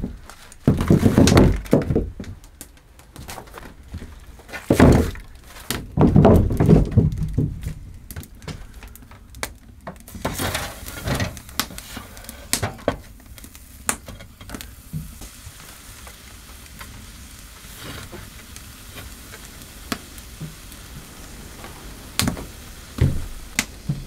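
Heavy stones being knocked together and dropped onto a wooden plank floor, several loud thuds in the first seven seconds. After that come lighter knocks and scrapes as stones are set onto a wood stove's iron cooktop, over a faint steady hiss with small ticks.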